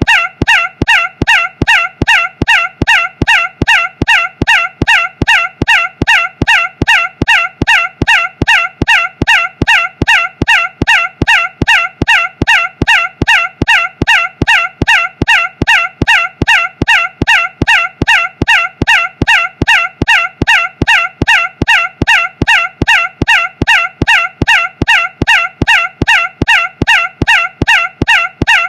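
A short, harsh, nasal pitched sound looped over and over, identical each time, a bit over twice a second.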